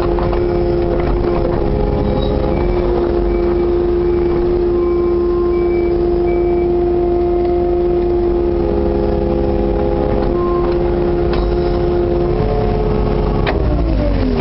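Kubota KX080-4 excavator's four-cylinder diesel engine running steadily at working revs, heard from inside the cab. Its revs drop away near the end. A faint beep repeats about twice a second through the first half.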